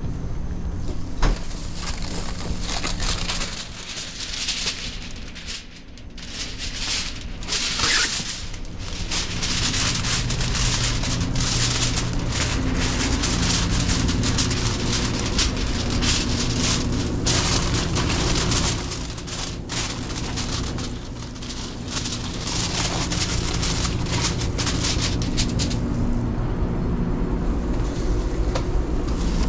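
Steady low hum of restaurant kitchen equipment under dense crackling and rustling, with aluminium foil being handled and crinkled. The crackle sets in a few seconds in and eases off near the end.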